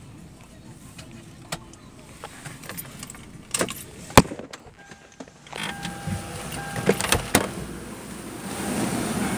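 Clicks and knocks of handling inside a parked car over a low rumble. The loudest is a sharp click a little past four seconds in. A steady rush of noise then builds toward the end.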